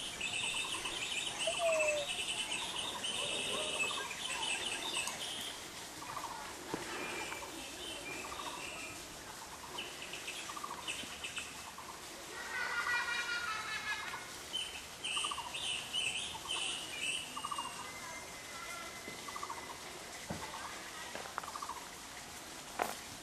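Birds chirping and calling, short high calls repeating every second or so, with a busier run of song about halfway through.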